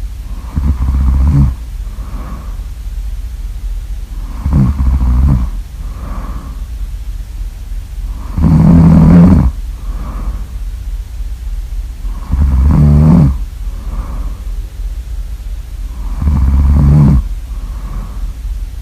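Loud snoring: five snores about four seconds apart, each with a softer breath between them.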